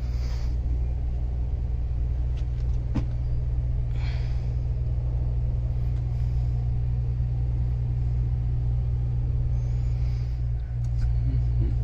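Steady low mechanical hum, with a faint click about three seconds in and a light scrape a second later.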